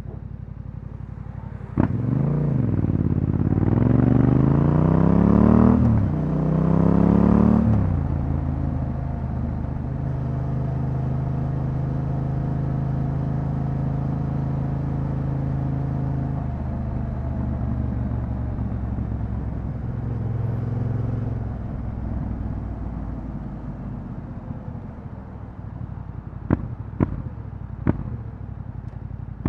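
Yamaha Ténéré 700's parallel-twin engine through an Akrapovic exhaust: a sharp clunk about two seconds in, then it revs up twice, the pitch dropping at each gear change, runs steadily at cruising speed, and eases back toward idle. Three sharp clicks near the end.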